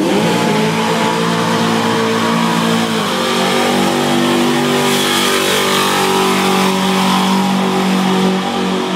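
Pickup truck doing a burnout: the engine is revved up sharply and held at high revs while the rear tyres spin and smoke. The engine note shifts slightly about three seconds in, then holds steady.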